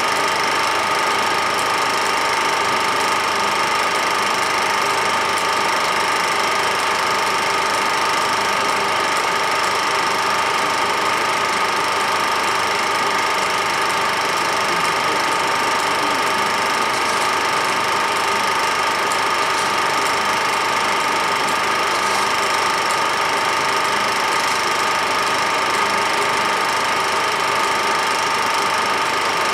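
Small-gauge film projector running: a steady mechanical whirr with a constant whine and hiss, unchanging throughout.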